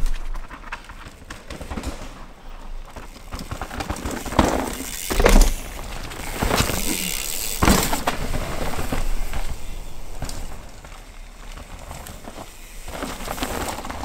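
Full-suspension mountain bike ridden hard down a rough dirt trail: knobby tyres rolling and skidding over dirt and roots, with the bike's chain and frame rattling and several sharp knocks from hard hits, the loudest a little past five seconds in.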